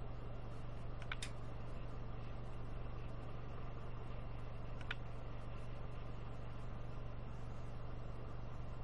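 Steady low hum, with three light metal clinks, two close together about a second in and one near five seconds, as bolts are started by hand to mount a carburetor on an engine.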